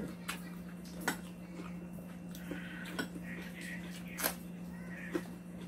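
Chopsticks and spoons making scattered light clicks against bowls and plates, about five of them, with small eating sounds between, over a steady low hum.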